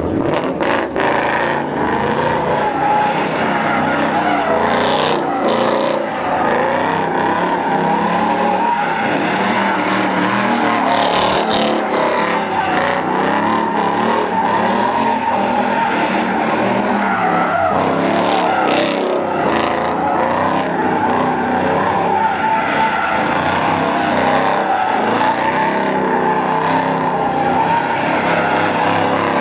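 A car doing donuts: its engine revving hard while the tires squeal and skid without a break on the asphalt.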